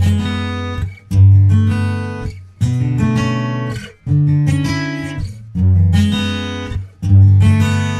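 Background music: an acoustic guitar strumming chords, one about every second and a half, each left to ring and fade before the next.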